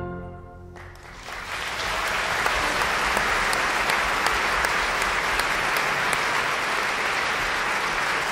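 Audience applauding at the end of an operatic aria: the orchestra's last chord fades and the clapping breaks out about a second in, then holds steady.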